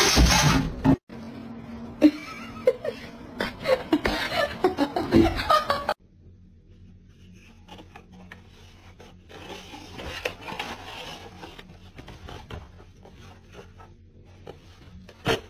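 A person laughing in short, uneven bursts for a few seconds, followed by a much quieter stretch of faint rustling.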